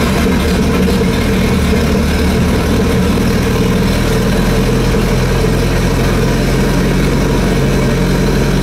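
MerCruiser 3.0 four-cylinder inboard boat engine idling steadily.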